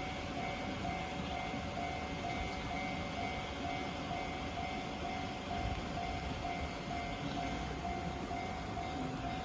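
Japanese railway level crossing's electronic warning bell ringing steadily, an even ding about twice a second: the crossing is closed for a train that has not yet arrived.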